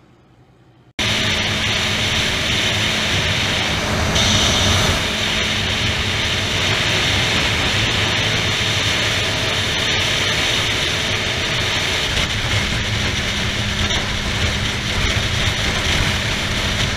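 Motorcycle riding at highway speed: a steady, loud rush of wind noise over the microphone with a steady engine drone under it. It starts abruptly about a second in.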